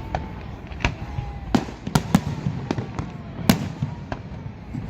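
Fireworks display: an irregular string of sharp bangs from bursting shells, about two a second, the loudest about three and a half seconds in, with faint whistling tones between them.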